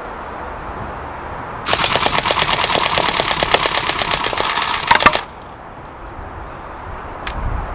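WE MP5 SD6 gas blowback airsoft gun firing one long full-auto burst of about three and a half seconds, starting about a second and a half in and cutting off suddenly. The rate is a little choppy and uneven, which the shooter puts down to the gas magazine cooling rapidly and losing pressure.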